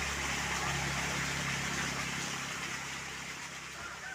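A motor running steadily: a low, even hum under a broad hiss, easing off slightly near the end.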